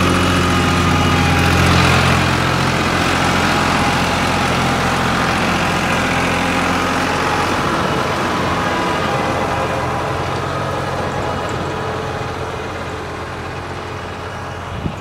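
New Holland 5500 Turbo tractor's diesel engine running steadily, growing fainter over the last few seconds, with one short knock near the end.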